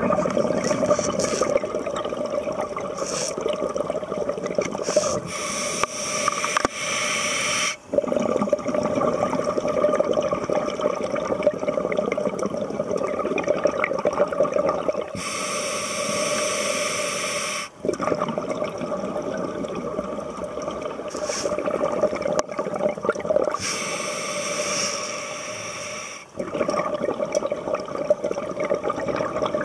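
Scuba diver breathing through a regulator underwater: long stretches of bubbling exhalation alternating with a hissing inhalation of two or three seconds that stops abruptly. The cycle repeats three times, about every nine to ten seconds.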